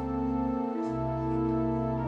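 Organ playing slow, sustained chords, with the bass note changing a little under a second in.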